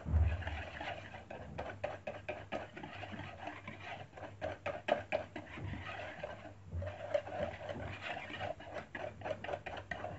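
Wire whisk beating a thin egg-and-flour batter in a plastic mixing bowl: quick, irregular clicking and sloshing strokes, opening with a low knock and with a short pause about two-thirds of the way in.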